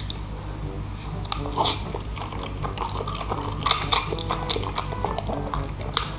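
Close-up mouth sounds of a person eating spaghetti: wet slurping and chewing with sharp smacking clicks now and then, over faint background music.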